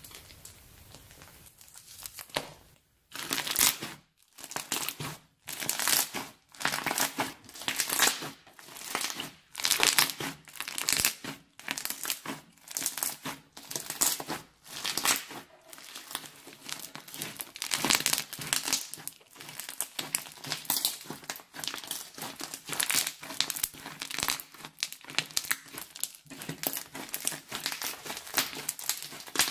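Hands squeezing and stretching glossy slime studded with small coloured beads, giving crackly, crinkling squishes. They come in bursts about once a second, after a quiet first two seconds or so.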